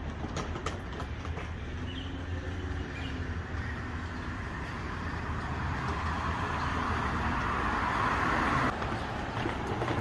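Hard-shell suitcase wheels rolling over paving tiles: a steady rumble with clicking over the tile joints, growing louder, then breaking off suddenly near the end.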